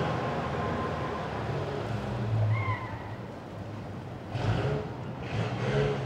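Old sedan's engine running as the car drives off, its hum fading over the first few seconds. A short high chirp comes about two and a half seconds in, and two brief rushes of noise near the end.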